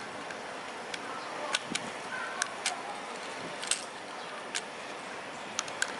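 Toy foam-dart revolver being handled: about ten sharp plastic clicks at irregular intervals, some in quick pairs and threes, over a steady hiss.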